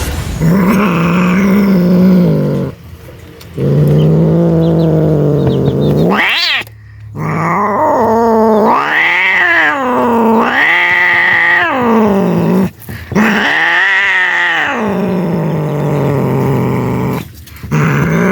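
Frightened cat yowling and growling in a series of long, drawn-out wails, each rising and falling in pitch, with a short, sharply rising cry about six seconds in. It is the defensive caterwaul of a scared cat.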